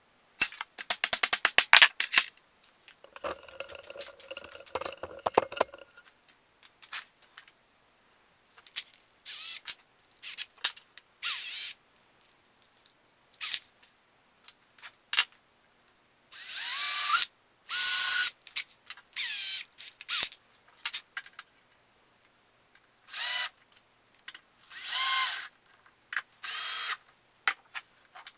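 Cordless drill run in repeated short bursts of one to two seconds, some spinning up or down in pitch. A quick run of clicks and a steady hum of a smaller tool come before them, and tool-handling taps fall between.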